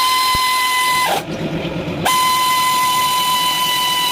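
A power tool's motor whining at a steady high pitch while the trigger is held. It runs for about a second, winds down with a falling pitch, and then starts again for a longer run.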